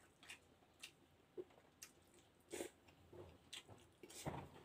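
Faint close-up mouth sounds of a man eating with his fingers: chewing and a string of short smacks, the loudest about halfway and near the end.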